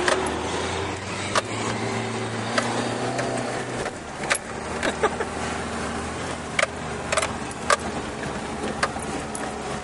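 Off-road 4x4 engine running, its note strongest for the first four seconds and then falling away, with sharp clicks and knocks at irregular intervals.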